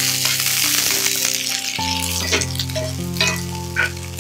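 Onion, ginger and garlic sizzling in hot oil in a skillet, stirred with a slotted metal spatula that scrapes the pan a few times in the second half. Soft background music with held chords plays underneath.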